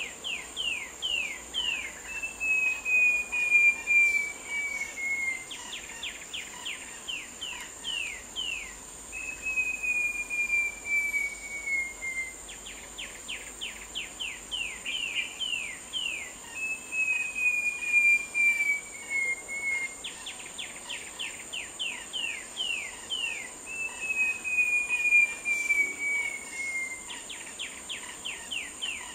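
Short-tailed babbler singing: a repeated phrase of a quick run of about ten short, falling notes followed by a long, slowly falling clear whistle, heard four times. A steady high insect drone runs behind it.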